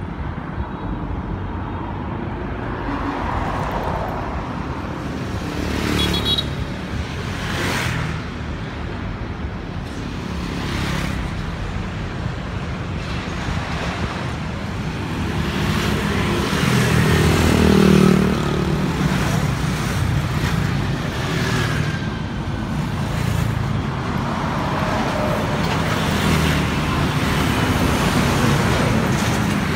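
Steady road traffic passing: engine and tyre noise of vehicles going by, loudest about eighteen seconds in as a heavy engine passes, then a container semi-truck going by close near the end.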